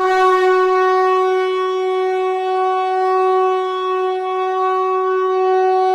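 A conch shell (shankha) blown in one long, steady note held without a break.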